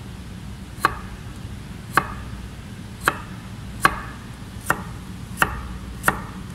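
Chef's knife slicing a carrot into thin paysanne squares on a plastic cutting board. There are seven sharp knocks of the blade against the board, about one a second, coming a little quicker toward the end.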